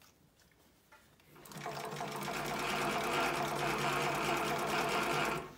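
Juki LU-563 industrial walking-foot leather sewing machine stitching a seam through leather and fabric: it runs up to speed about a second and a half in, sews at a steady fast rate, and stops abruptly near the end.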